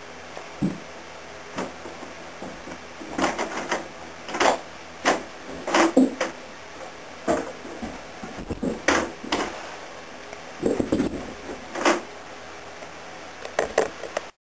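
An irregular series of sharp knocks and clicks, some in quick clusters, over a steady low background, cutting off abruptly near the end.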